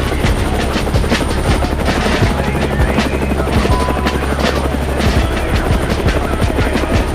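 Background music with a steady beat of about two strokes a second over a sustained low bass.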